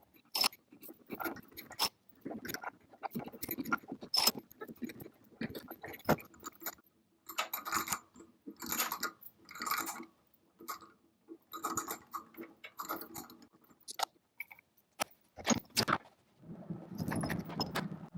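Small metal parts and hand tools being handled, giving irregular clinks, clicks and jingly rattles. A steady low hum starts near the end.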